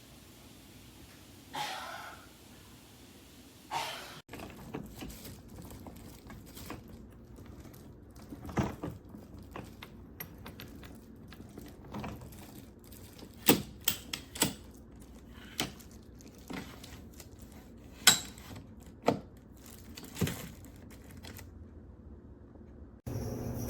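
Irregular series of sharp clicks and knocks of hard objects being handled, a few much louder than the rest.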